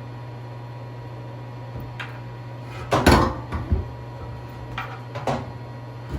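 A few sharp knocks and clunks of parts and hardware being handled, the loudest a short clatter about three seconds in, over the steady hum of a running heater.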